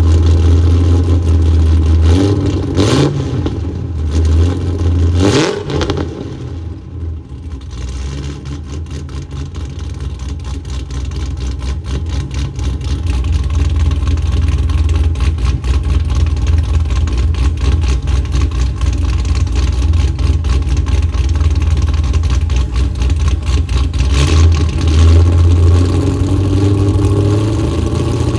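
Supercharged LT4-based 416-cubic-inch V8 of a 2016 Cadillac CTS-V running through a Billy Boat exhaust: two quick throttle blips that rev up and fall back, then steady running, with another rise in revs near the end.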